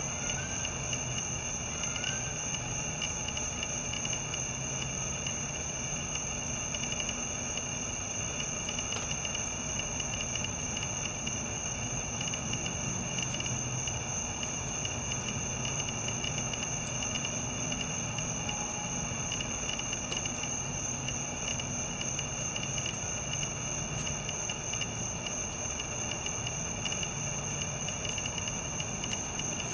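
Steady, high-pitched chorus of crickets, several trills at different pitches going on without a break.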